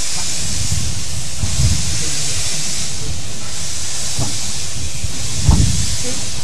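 Narrow-gauge steam locomotive hissing steam as the train moves slowly, the hiss swelling and fading about every second and a half. Two dull low thumps, the louder about five and a half seconds in.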